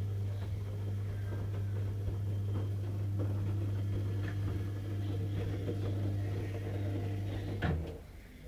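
A steady low hum with faint clicks and rustles over it, cutting off suddenly with a click near the end.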